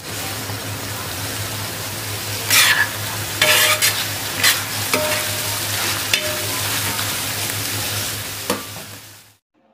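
Coarsely pounded mutton sizzling as it fries in oil and masala on a tawa, with a spatula scraping and stirring it across the pan in several strokes. The sizzle fades out near the end.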